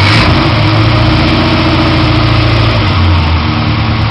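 Volkswagen Gol engine idling with a loud, steady exhaust rumble; the idle drops slightly about three seconds in.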